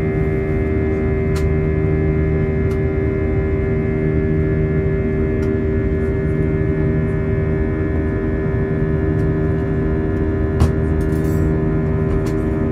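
Airbus A320 engines and airflow heard from inside the cabin: a steady drone with a constant hum of fixed tones over a rumble. A few light clicks occur, with a sharper knock and a brief rattle about ten seconds in.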